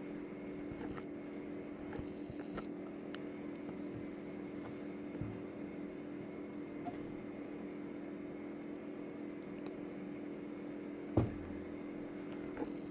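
Steady low hum of room tone, like a fan or appliance running, with a few faint light ticks and one short thump a little before the end.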